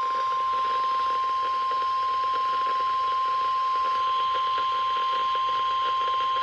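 NOAA Weather Radio warning alarm tone, the 1050 Hz attention signal, heard through a weather radio as one steady, unbroken high tone over faint hiss. The tone signals that a warning broadcast follows.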